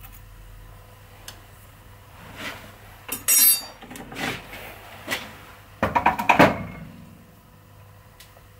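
Metal hand tools clinking and knocking against a metal lathe's tool post and carriage while chips are cleared from the boring tool: a short metallic rattle about three seconds in and a quick run of knocks around six seconds in, over a faint low hum.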